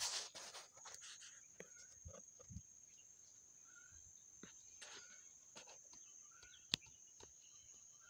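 Steady high-pitched insect trill, with faint scattered ticks and rustles and one sharp click about seven seconds in. A short burst of handling noise at the very start.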